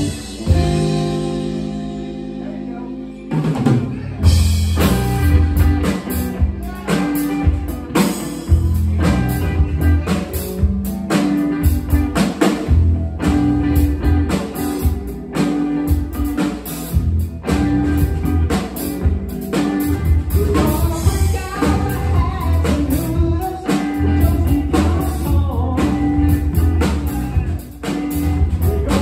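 Live band of electric guitar, bass guitar and drum kit. A held electric guitar chord rings for about the first three seconds, then the drums and bass come in and the band plays on with a steady beat.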